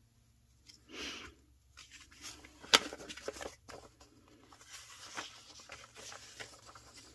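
Sheets of scrapbook paper rustling and sliding as they are handled and turned over, with a sharp tap a little under three seconds in.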